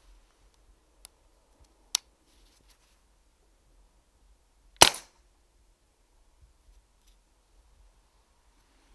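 A Walther Rotex RM8 PCP air rifle fires once about five seconds in: a single sharp crack with a short tail, the shot at a rat. A fainter sharp click comes about two seconds in.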